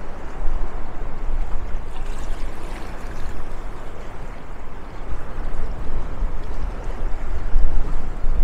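Steady rushing outdoor noise with a low rumble that comes and goes, growing louder near the end.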